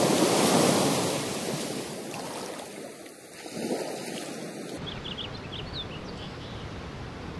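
Ocean surf breaking and washing over shoreline rocks, one wave surging early and another about three and a half seconds in. A little under five seconds in, the sound cuts abruptly to a quieter outdoor background with a few short high chirps.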